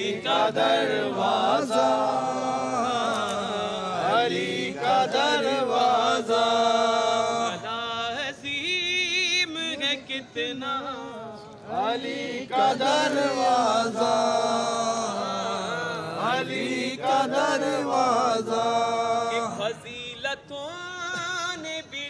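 A man chanting Urdu devotional verses unaccompanied in a solo voice. He draws out long held notes with quivering, wavering ornaments, and takes short breaths between phrases.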